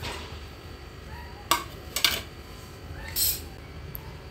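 A ceramic plate knocks twice against a stainless steel mixing bowl, about half a second apart, as chopped chillies are tipped off it. A short scrape follows about three seconds in.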